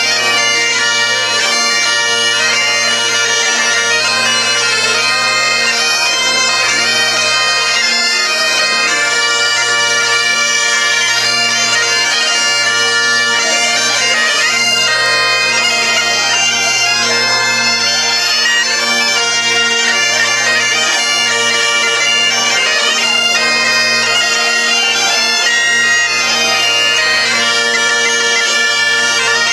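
Several Great Highland bagpipes playing a tune together, the chanters' melody over a steady, unbroken drone.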